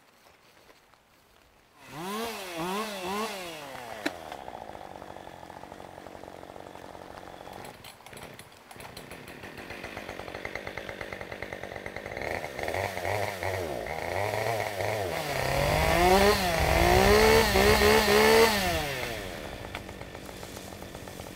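Chainsaw engine revved in quick throttle blips from about two seconds in, then settling to idle. It climbs to harder, louder blipping revs later on before dropping back to idle near the end.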